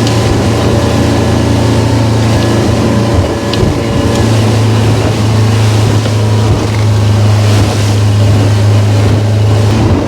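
Motorboat engine running steadily under way, a strong low hum with water and wind noise over it. The engine note dips briefly about three seconds in, then holds steady again.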